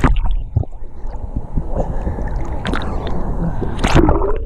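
River water churning and bubbling, heard muffled through a GoPro's microphone held underwater, with a few sharp splashing bursts, the loudest near the end, as a swimmer moves through the water close to the camera.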